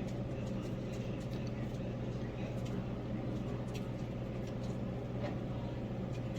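Air fryer toaster oven running: a steady low hum with a faint higher tone above it and scattered light ticks.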